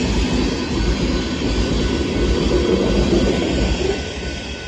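Union Pacific freight sand train rolling past fast: a loud, steady rumble of wheels and cars on the rails, easing off a little near the end.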